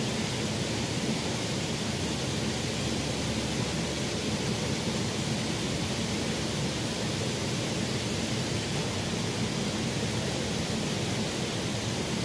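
Small stream running: a steady, even rush of flowing water.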